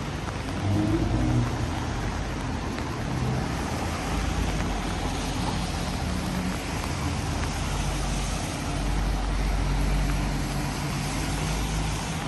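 Road traffic on a rain-soaked city street: vehicle engines running and passing over a steady hiss of rain and wet tyres, with louder passes about a second in and again around three-quarters of the way through.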